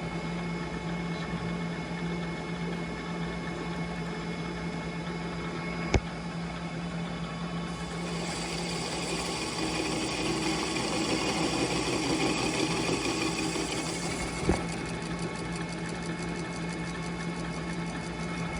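Metal lathe running with a parting tool cutting into the spinning workpiece: a steady motor hum, with a harsher cutting noise building from about 8 seconds in as the tool feeds deeper. Two sharp clicks, one about six seconds in and one near the end.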